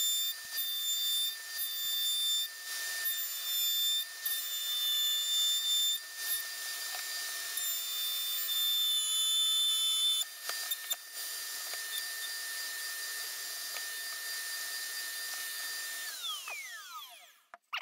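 Hand router mounted in a router table, running with a steady high whine while a wooden board is fed past the bit to cut a rebate, the cutting noise swelling and dropping with each pass. After about ten seconds it runs without cutting, and near the end it is switched off and its whine falls away as the bit spins down.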